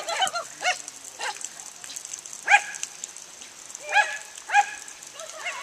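Small terrier, a Jack Russell, barking in short, high yaps, about seven of them at uneven intervals.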